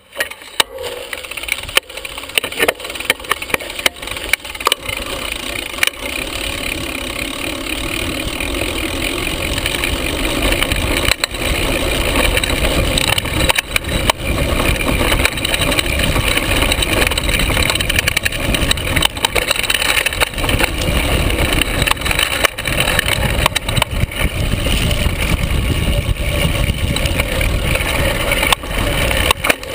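Carbon hardtail mountain bike riding down a bumpy dirt singletrack, heard from a camera just in front of the bottom bracket: a constant clatter of chain and frame rattling and knocking over rocks and ruts, over tyre and rolling noise. The rolling noise builds over the first ten seconds or so, then stays loud with frequent sharp jolts.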